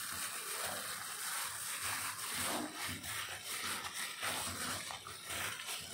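Raw chicken wings being mixed into a wet marinade of egg, lemon juice, grated garlic and tapioca starch, with faint, irregular wet rubbing and stirring.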